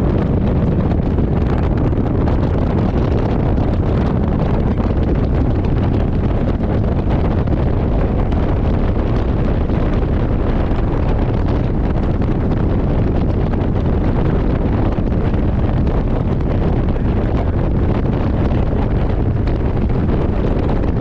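Wind buffeting the microphone on the open front deck of a fast ferry at speed, a loud, steady low rumble, over the rush of the boat running through the water.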